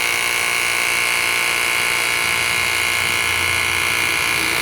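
Battery-powered pressure washer's pump motor running steadily with a high whine while it sprays water, a little loud.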